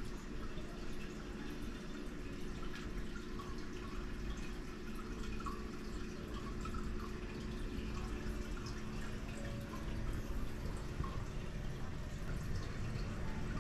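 Steady indoor room noise with a low hum and scattered faint ticks.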